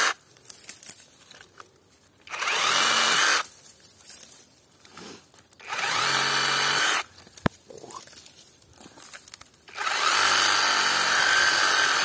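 Parkside Performance PSSAP 20-Li D5 cordless sabre saw (reciprocating saw) running in three short bursts as its blade cuts through small tree stems at ground level, the last burst running on past the end. A single sharp click falls between the second and third bursts.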